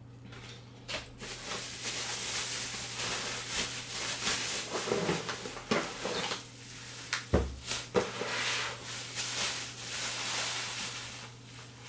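Plastic bag and bubble wrap rustling and crinkling as a wrapped air compressor is pulled from its cardboard box and handled, with a single thump about seven seconds in.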